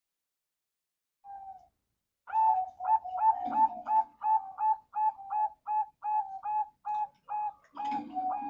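Male zebra dove (perkutut) singing. One short note, then a long run of quick, clipped coos, about two or three a second.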